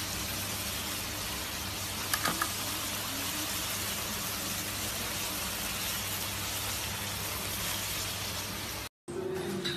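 Thin meat slices sizzling in bubbling hot fat on a platter, a steady hiss, with a few clicks of metal tongs against the plate about two seconds in.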